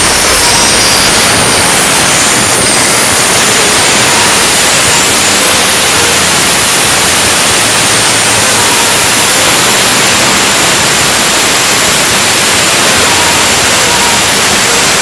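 Atlas Copco GX7 rotary screw air compressor running loaded: a loud, steady rushing whir.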